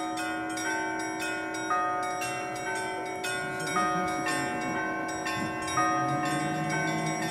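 A set of new church bells being rung, with overlapping ringing tones struck about three times a second in a steady rhythm. A deeper bell joins about six seconds in.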